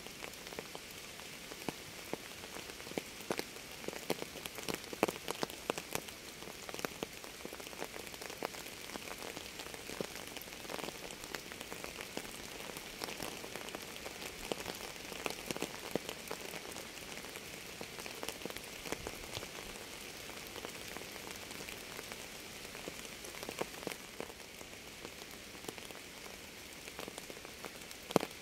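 Steady rain falling, an even hiss with many separate drops striking sharply close by. The drop strikes come a little thicker and louder about five seconds in.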